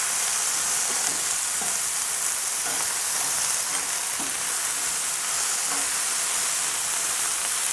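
Vegetables (mushrooms, zucchini and snack peppers in oil and balsamic vinegar) sizzling steadily on a preheated cast-iron griddle plate, with a few faint light knocks.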